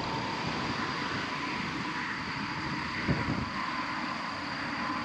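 Steady wind buffeting the microphone outdoors, with a low rumble and a faint, steady thin whine underneath, and one brief bump a little after three seconds.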